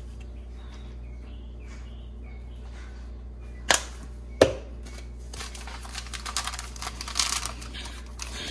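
Plastic spice shaker of ground pepper being shaken over raw chicken in a plastic bowl. There are two sharp taps a little under four seconds in, then a quick, dense rattling patter for the last few seconds, over a steady low hum.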